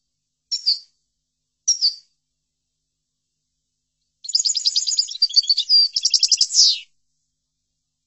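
European goldfinch: two short chirping calls, then a rapid twittering song phrase of about two and a half seconds.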